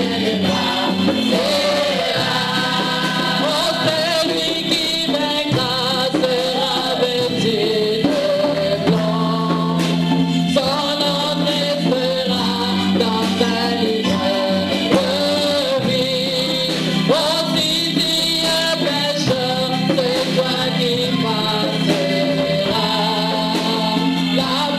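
A gospel choir of women's voices singing a worship song into microphones, with steady sustained keyboard chords underneath.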